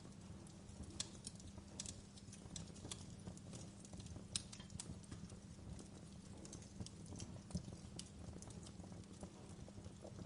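Wood fire crackling: faint, irregular sharp pops and snaps over a low steady rumble, with the loudest snap a little before halfway.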